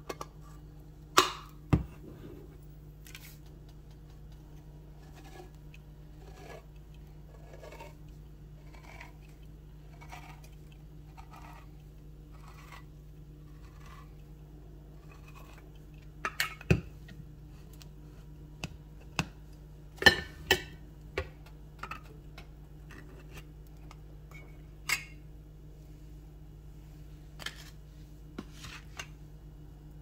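Hand-crank can opener cutting around a steel can lid: a regular ticking roughly once a second as the key is turned, with sharper metal clicks and clunks as the opener is clamped on, handled and released, the loudest cluster about two-thirds of the way through.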